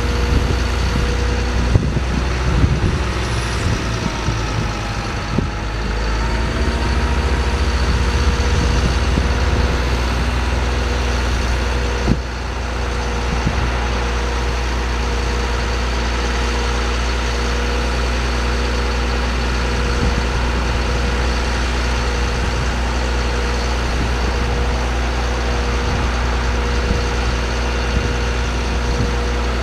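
2006 GMC C7500 truck engine running steadily at idle, with a constant high hum over it. There are a few knocks in the first few seconds and a sharp one about twelve seconds in.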